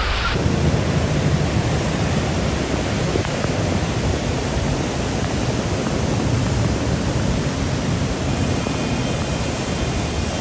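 Steady rushing noise of traffic driving through deep floodwater in heavy rain, tyres throwing up spray, with a low rumble of engines underneath.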